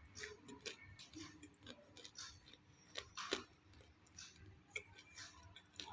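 Faint, irregular crisp crunches and snaps of roasted clay pot pieces being eaten, a few louder ones about three seconds in.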